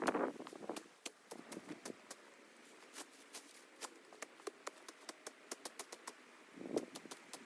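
Dry brush and twigs crackling and snapping in many irregular sharp clicks, with a louder rustling burst at the start and another near the end.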